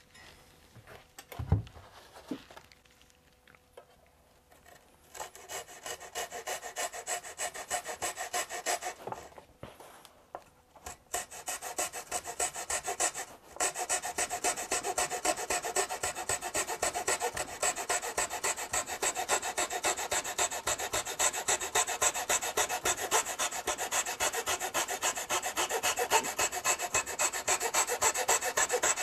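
Flush-cut saw trimming the end of a wooden door-trim cap flush, in quick back-and-forth strokes. It starts about five seconds in, pauses briefly twice, then saws steadily from about halfway on.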